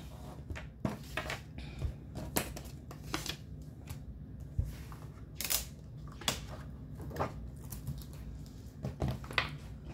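Laminated game sheets and paper money being handled and flipped over on a tabletop: scattered rustles and light clicks and taps.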